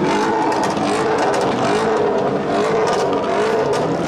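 A loud car engine being revved, its pitch rising and falling over and over above a rough, noisy exhaust.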